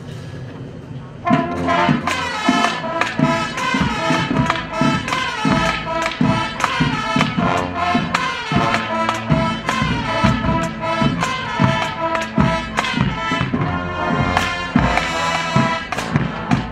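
High school marching band playing: about a second in, the brass comes in loud with full held chords over frequent drum hits and cymbal crashes.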